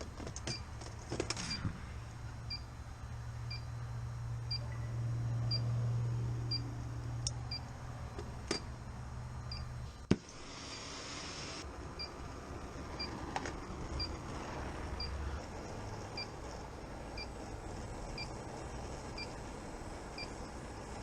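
Gas leak detector ticking with a faint short beep about once a second, as it samples for propane refrigerant. A low hum runs through the first half. A sharp click about ten seconds in is followed by a brief hiss.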